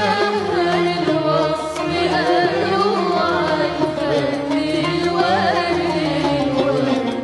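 A girl singing a classic Arabic song into a microphone, her melody wavering and ornamented, over steady instrumental backing.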